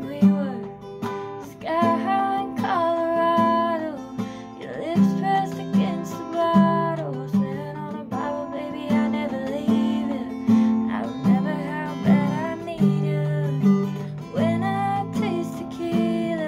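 Acoustic guitar strummed in a steady rhythm while a woman sings a slow melody over it.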